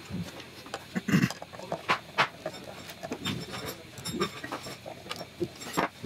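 Scattered clicks and knocks from a plywood CNC machine table being pushed by hand on its rails, with a few louder knocks about two seconds in and near the end.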